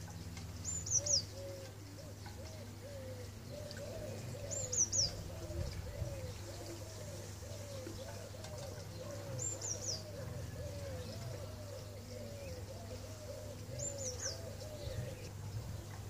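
Birds calling: a long run of soft, low notes, each rising and falling, about two a second. A short, high, falling chirp phrase from a small bird comes in every four to five seconds, over a steady low hum.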